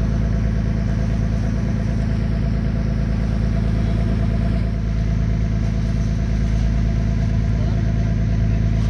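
Deep-sea fishing boat's engine running steadily as the boat cruises, a constant low drone.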